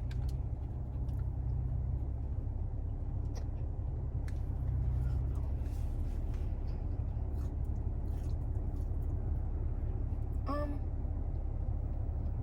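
Steady low rumble of a car idling, heard from inside the cabin, with scattered light clicks and a short voice sound about ten and a half seconds in.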